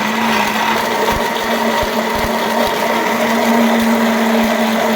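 Electric kitchen blender running at a steady speed, its motor humming at a constant pitch as it blends pomegranate seeds.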